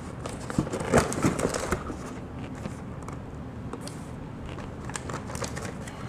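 A cardboard motherboard box and its packaging being opened and rummaged through by hand: rustling with scattered clicks and knocks, busiest in the first two seconds and then quieter.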